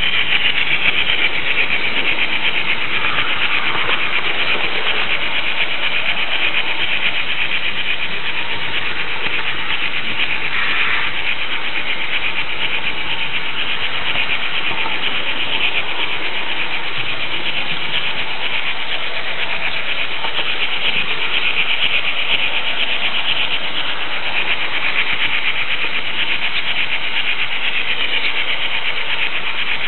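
Märklin H0 model train running along the track, heard close up from a camera riding on one of its cars: a steady, high-pitched rolling and whirring of small metal wheels on the rails.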